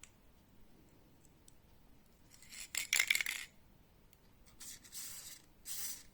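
Hand handling of small hard parts: a short burst of rubbing with a rapid run of light clicks, then two shorter rubbing strokes near the end.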